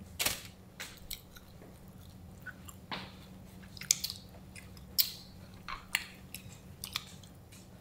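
Close-up chewing of hard, crunchy chicharrones (fried pork rinds), with short sharp crunches coming every second or so.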